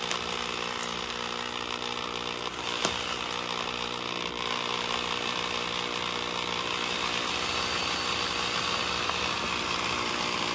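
Power drill running steadily, boring a 1-inch paddle bit on an extension down through a foam boat fender.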